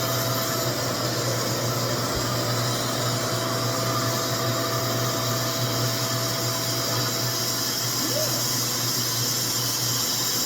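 RevAir reverse-air hair dryer running steadily, its suction fan drawing a section of hair into the tube: a rushing, vacuum-like air noise over a low hum, with the heat switched off.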